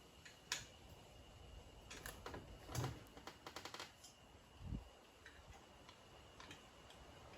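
Light clicks and taps from handling the mirror and its mount, with a quick run of small ticks about three and a half seconds in and a soft thump near five seconds.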